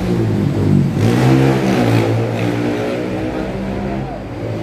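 An engine revving, rising and falling in pitch several times, loudest about a second in and easing off toward the end.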